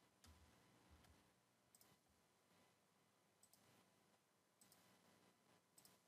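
Near silence with a few faint, irregular computer mouse clicks, several of them in quick pairs.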